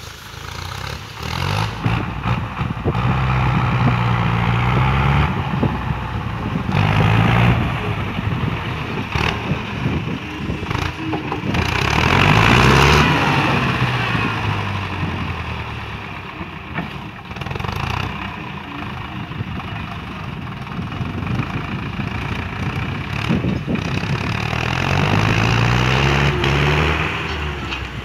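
Farm tractor's diesel engine running under load as it pulls a disc harrow over ploughed soil. It gets louder as the tractor passes close, about halfway through, then fades as it pulls away.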